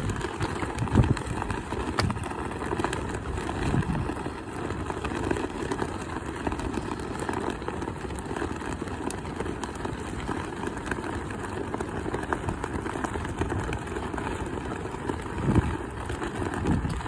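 Strong wind buffeting the microphone: a steady low rumble with louder gusts near the start and again near the end.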